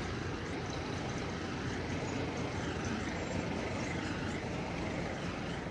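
Street traffic: vehicle engines and tyres passing close by in a steady, unbroken wash of noise.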